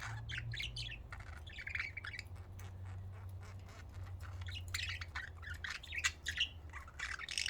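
Budgerigars chattering: a rapid, continuous run of short high chirps and squawks with sharp clicks among them, over a steady low hum.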